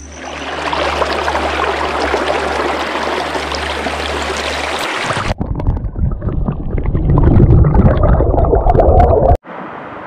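Shallow rocky river flowing with a steady rush. About five seconds in it cuts to the louder, muffled, bubbling roar of the water heard underwater, with scattered clicks of bubbles. This cuts off abruptly near the end, back to a quieter steady rush of the river.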